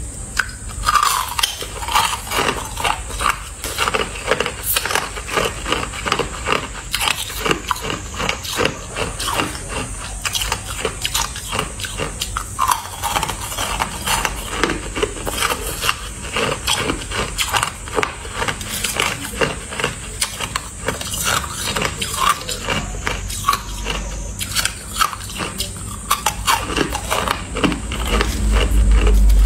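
Frosty shaved ice being bitten and chewed, a dense, continuous run of crisp cracks and crunches, with a low rumble coming in near the end.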